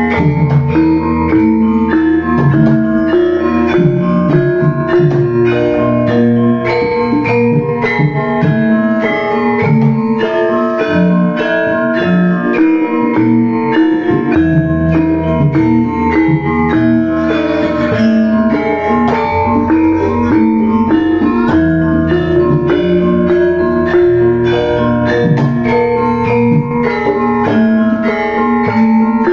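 Gamelan music: bronze metallophones and gong-chimes playing a steady, interlocking rhythmic pattern.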